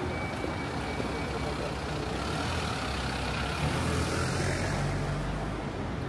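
City street traffic: a motor vehicle's engine running close by over a steady rumble of road noise.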